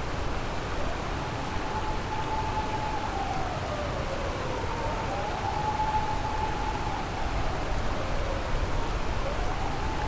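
Kamo River water rushing steadily. Over it, fainter, an emergency-vehicle siren wails, rising and falling slowly about every four to five seconds.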